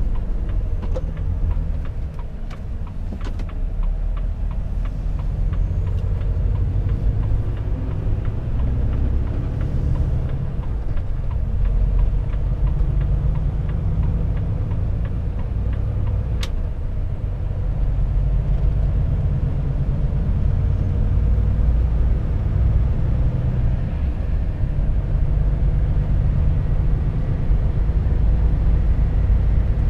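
Volvo FH 460 truck's 13-litre six-cylinder diesel running under way, heard from the cab as a steady low drone with road noise, growing a little louder in the second half. A few light clicks come near the start, and one sharp click comes about halfway.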